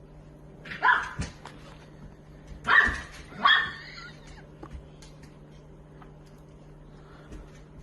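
A dog barking three times: once about a second in, then twice close together a couple of seconds later.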